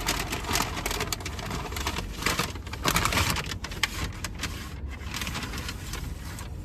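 Rustling and crinkling of a takeout bag and napkins being handled, loudest around the middle, over a low steady rumble.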